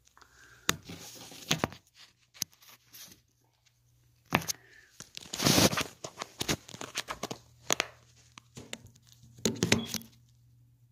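Rustling, rubbing and clicking handling noise from a phone held close and moved around, with a longer rustle about five and a half seconds in and a cluster of knocks near the end as it is set down. A faint low steady hum runs underneath.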